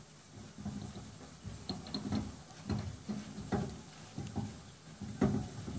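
A screwdriver turning a screw down on the gas valve coil bracket of a gas dryer, with faint irregular clicks and scrapes of metal.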